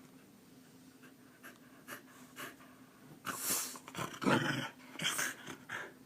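A Keeshond panting and snuffling in short breathy bursts, after a few faint ticks, growing louder from about three seconds in.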